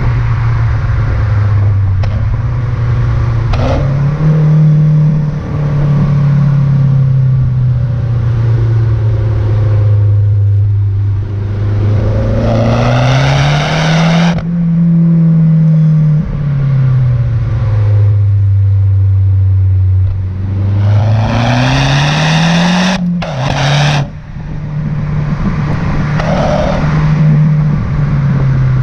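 Mazda 6 MPS's turbocharged 2.3-litre four-cylinder engine running continuously. Its revs climb twice under hard throttle, about twelve and about twenty-one seconds in, then fall away to a steadier note.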